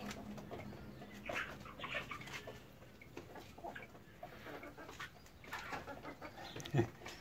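Chickens clucking faintly and intermittently, short irregular calls.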